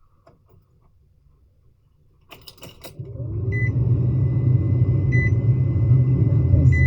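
Keys and clicks, then a car engine catches about three seconds in and runs steadily. A thin beep, like a dashboard warning chime, repeats about every second and a half over the running engine.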